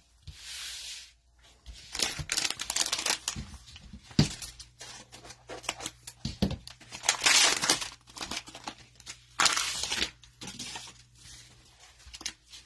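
Cellophane wrapper of a trading-card cello pack being torn open and crinkled, in several separate rips with small clicks of handling between them.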